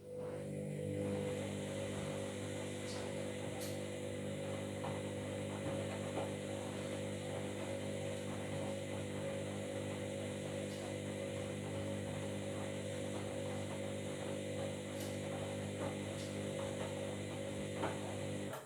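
Washing machine running with a steady electric hum and a faint hiss, with a few faint clicks; it starts and stops abruptly.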